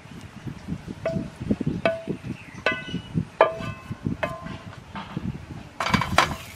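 A pan and spatula clinking against a ceramic bowl as stir-fried vegetables and fish are scraped into it: about five sharp clinks, each ringing briefly, over a low rumble, then a denser clatter near the end.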